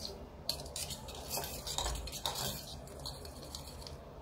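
Steel spoon stirring sugar syrup in a stainless steel bowl, scraping and clinking against the sides, with a sharp clink about half a second in and several more clinks through the middle.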